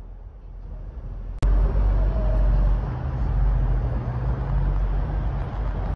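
Road traffic on a highway: quiet at first, then, after an abrupt cut about a second and a half in, steady loud noise of passing vehicles, heaviest in the low range.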